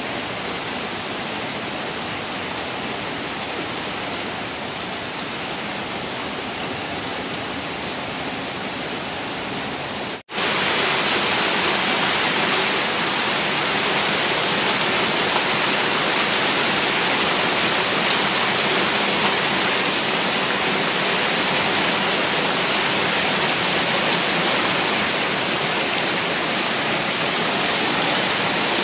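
Heavy rain runoff cascading down stone steps and gushing across a paved yard in a steady rush of water. About ten seconds in it cuts out for an instant and comes back louder and hissier.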